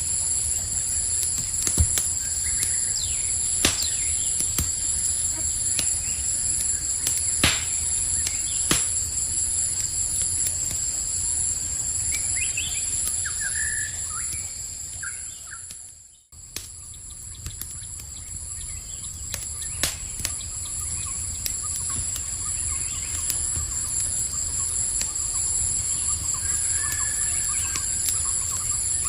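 A campfire crackling with occasional sharp pops over a steady, high, trilling insect chorus, with a few short bird chirps. The whole sound dips to near quiet about halfway through, then fades back up.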